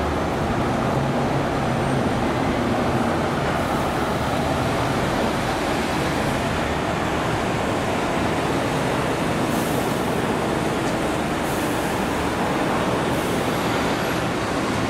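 Steady street traffic noise from passing road vehicles, holding at an even level with no single standout event.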